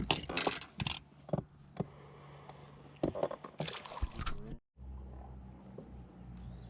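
Knocks, clatter and rustling on a fishing boat over a steady low hum. The sound cuts out abruptly about four and a half seconds in and comes back as a steady low hum alone.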